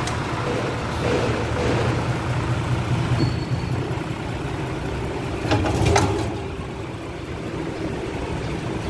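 Steady low mechanical rumble, with two sharp metallic knocks about five and a half and six seconds in.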